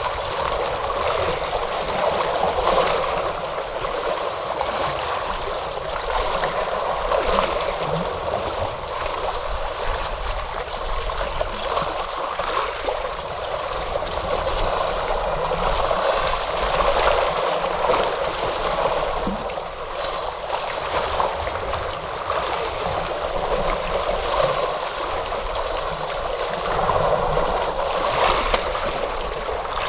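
Ocean waves washing on the shore: a continuous rushing of water that swells and eases gently in loudness.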